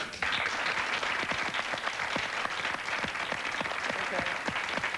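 Studio audience applauding: many hands clapping together, starting suddenly and keeping up at an even level.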